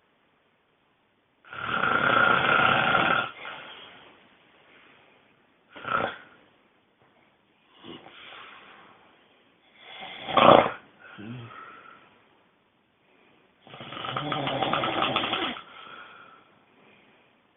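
A person snoring loudly and irregularly. There are long snores near the start and near the end, a few shorter, sharper snorts in between with the one about ten seconds in the loudest, and silent pauses between breaths.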